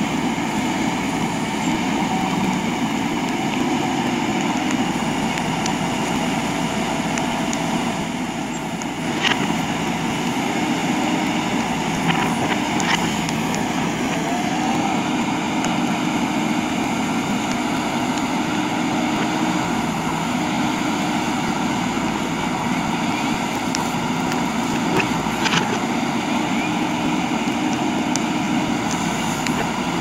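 JCB 3DX backhoe loader's diesel engine running steadily under load as the rear arm digs into earth and bamboo roots, with a few short sharp clicks or knocks from the working backhoe.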